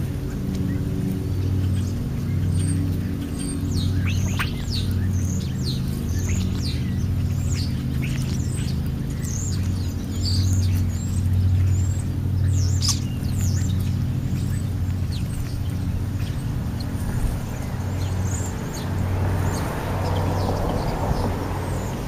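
European starlings calling as they feed: scattered short, high whistles and chirps, busiest in the first half. Under them runs a louder steady low hum that swells and fades about once a second, and a soft rushing noise comes in near the end.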